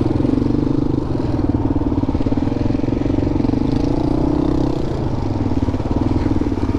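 Four-stroke single-cylinder dual-sport motorcycle engine running steadily at trail pace, easing off briefly about five seconds in.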